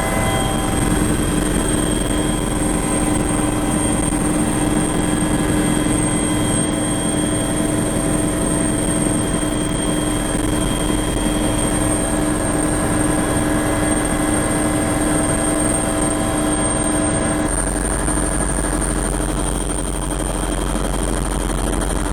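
Helicopter running close by: a loud, steady rotor and engine drone.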